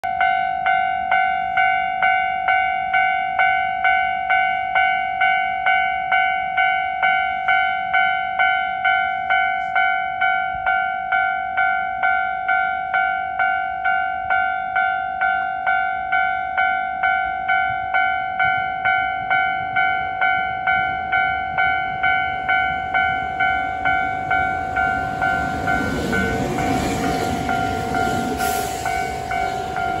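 A Japanese level-crossing alarm bell rings steadily at about two strikes a second while the crossing is closed. Near the end a Hankyu commuter train rumbles through the crossing over the bell.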